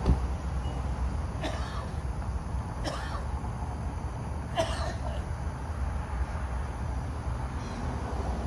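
A person coughing three short times over a steady low rumble.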